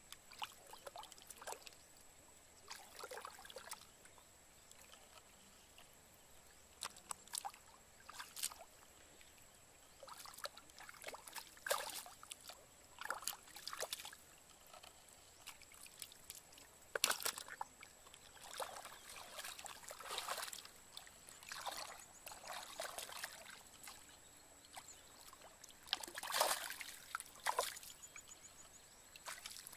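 Hands sloshing and splashing in shallow muddy water, in short irregular bursts, as they grope through the mud for fish.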